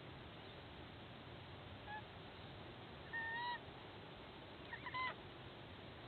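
White-bellied sea eagle honking: a brief call about two seconds in, a longer held call about a second later, and a quick pair of calls near the end.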